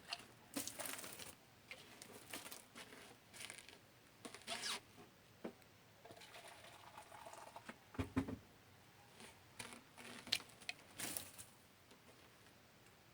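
Faint, irregular rustling, scuffing and small knocks from someone moving and handling things, with one slightly louder thump about eight seconds in.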